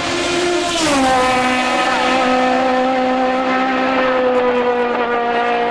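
Racing car engine at high revs, approaching. Its note drops in pitch about a second in, then holds steady and loud.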